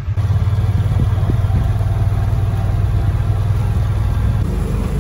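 Engine of a farm utility vehicle running steadily while driving across a pasture, a loud low hum that shifts slightly in pitch near the end.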